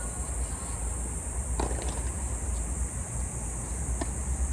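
Tennis ball being hit during a rally: a few sharp pocks, two close together about a second and a half in and another near the end, over a steady high hiss.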